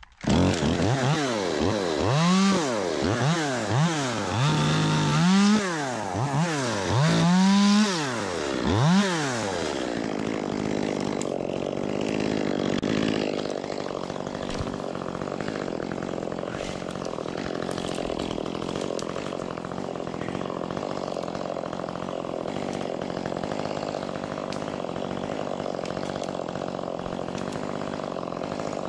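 Ported Echo 25T top-handle two-stroke chainsaw, revved up and down about seven times in the first ten seconds, then running steadily at a constant speed.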